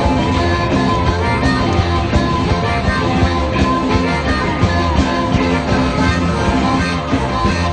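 Rock music playing steadily at full volume.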